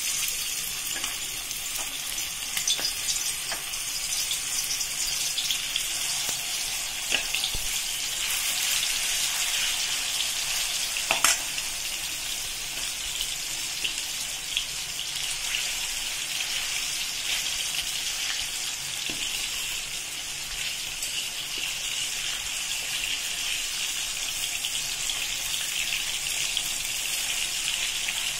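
Masala-marinated fish pieces sizzling in shallow hot oil in an iron kadai, a steady hiss, with a few sharp clicks as the pieces are laid in and moved with a steel spoon, the loudest about eleven seconds in.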